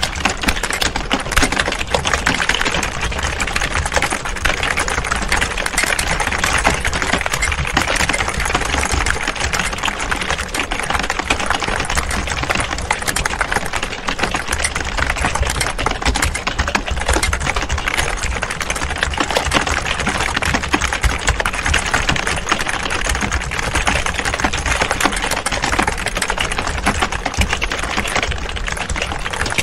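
Several people typing on computer keyboards at the same time: a dense, continuous clatter of key clicks at an even level.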